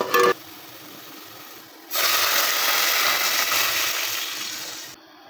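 Water poured from a jug into a hot aluminium pot of fried onions and oil: a loud steady gush and hiss begins about two seconds in and stops sharply near the end. Before it, a fainter steady hiss of the onions frying, and a short chime at the very start.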